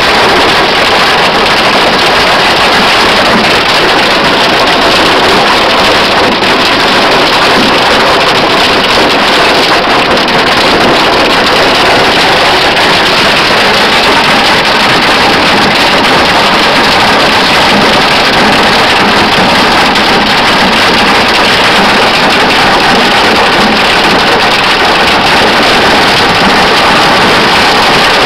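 Extreme hailstorm: hail and rain pelting down hard in strong wind, a loud, steady, unbroken hiss of ice striking the ground and surfaces.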